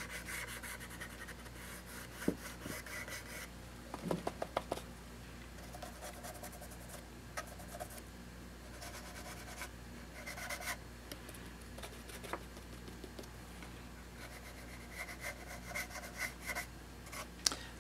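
Faint scratching and rubbing of a small brush-stick applicator, its tip stiff with hardened paint, working distress ink onto the edges of a paper-covered wooden box in short, irregular strokes, with a few light taps.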